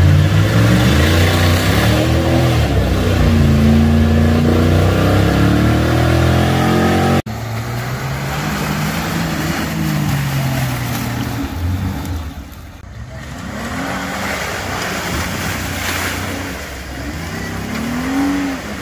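Off-road 4x4 engines revving hard through a deep mud pit, the pitch rising and falling with the throttle over a wash of churning tyre and mud noise. The sound cuts abruptly about seven seconds in to another vehicle doing the same.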